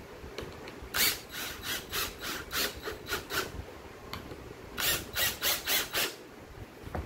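Cordless DeWalt drill driving two wood screws into a pine board, one after the other, each in a string of short bursts about three a second, with a pause between the screws.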